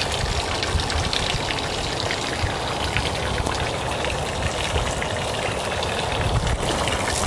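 Footsteps crunching on gravel during a walk, over a steady hiss that may be light rain.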